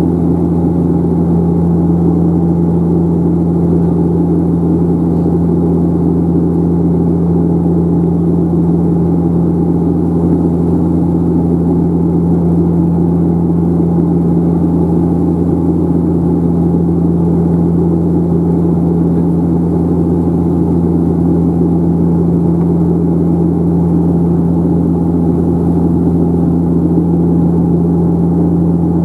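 Steady drone of a De Havilland Canada Dash 8 Q400's turboprop engines and six-bladed propellers heard from inside the passenger cabin in flight: a deep, even hum with a strong steady tone over a rushing roar, holding constant throughout.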